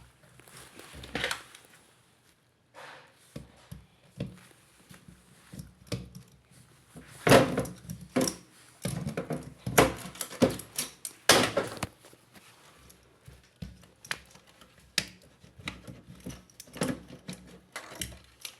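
Irregular knocks, clicks and clatter of hard dishwasher parts being handled and taken apart to reach the drain pump, with a loud run of knocks in the middle.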